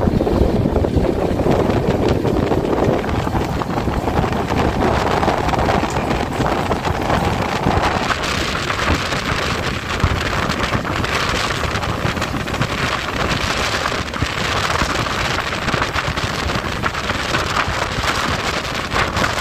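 Running noise of a moving Indian Railways express train heard from outside the coach: a steady rush of wheels on the track and air streaming past, with wind buffeting the microphone.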